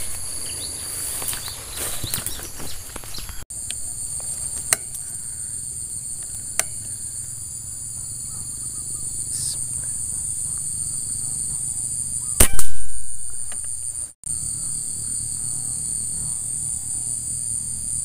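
Steady high-pitched buzzing of insects. About twelve seconds in comes a single sharp, loud crack with a short ringing tail.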